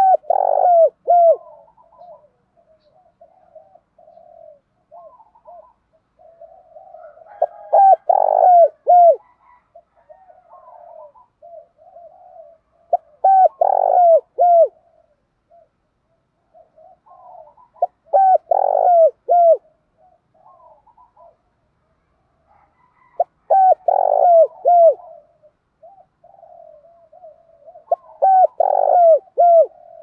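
Spotted dove cooing: six loud phrases of several coos, one about every five seconds, with softer coos in between.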